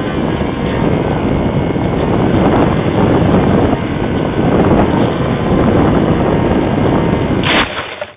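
Strong wind buffeting the microphone, with a faint steady whine underneath. There is a short loud rustle near the end, then the sound cuts off suddenly.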